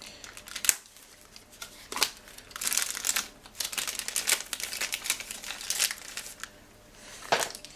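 Thin clear plastic parts bag crinkling and rustling in the hands as it is opened, in irregular bursts of crackle.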